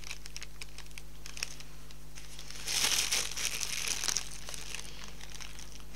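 Plastic piping bag crinkling and rustling as gloved hands squeeze whipped soy wax out through its nozzle, with many small crackles and a louder stretch of rustling around the middle.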